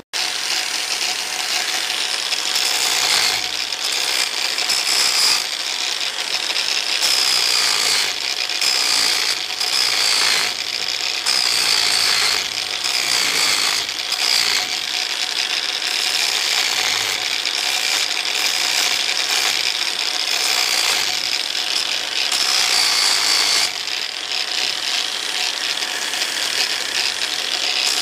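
Angle grinder running with its disc pressed against the metal accessory belt tensioner arm, grinding it down during the tensioner's repair. Its high whine wavers as the load changes, with a few brief dips.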